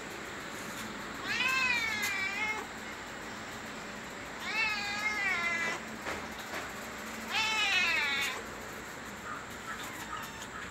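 Cat meowing three times, each meow about a second long, rising and then falling in pitch, a few seconds apart.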